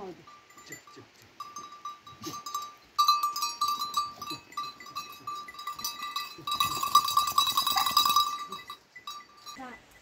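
Metal bells on a flock of sheep jingling and clinking as the animals move. They ring loudest from about three seconds in, and most between about six and a half and eight and a half seconds in.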